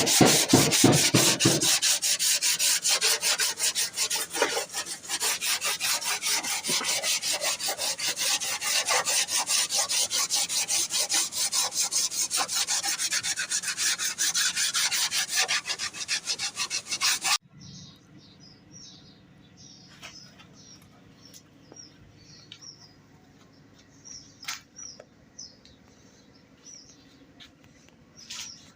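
Hand sanding on a car body panel: rapid, rhythmic rubbing strokes of abrasive paper that stop abruptly about seventeen seconds in. Faint short chirps and a few clicks follow.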